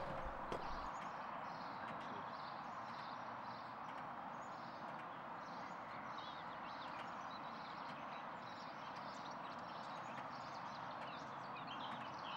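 Outdoor background ambience: a steady hiss with faint, high chirps repeated a few times a second.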